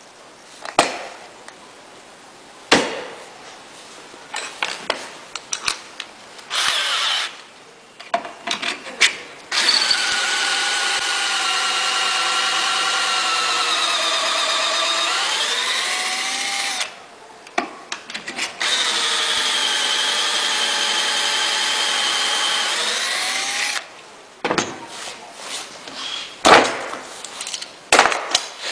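Power drill with a stepped pocket-hole bit boring into wood, run twice, about seven and then five seconds, with a steady motor whine that dips in pitch near the end of the first run. Scattered clicks and knocks come before and after the drilling.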